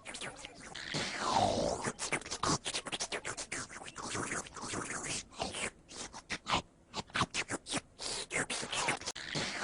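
Choppy, rapidly stuttering scratch-like sound effects in an edited loop, with a falling swoop about a second in.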